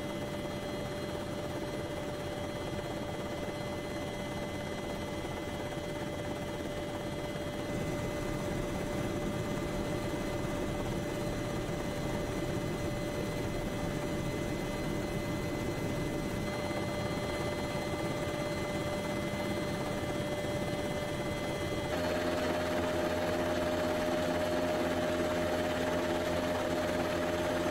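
Steady drone of an aircraft's engines heard from inside the cabin, with several steady whining tones over it. The mix of tones changes abruptly about 8 and 22 seconds in, and the drone is a little louder after the second change.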